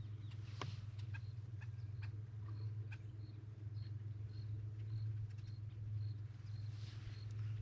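A bird's short, high chirps repeated about twice a second, faint over a steady low hum, with a few soft clicks.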